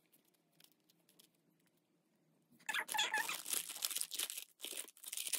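Thin clear plastic packaging crinkling continuously as a roll of tape is handled and slipped into it, starting about halfway through after a few faint rustles.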